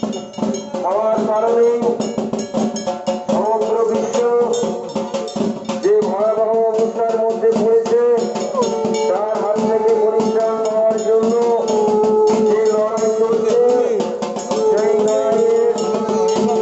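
Music: a held, gliding melody line over fast, dense percussion.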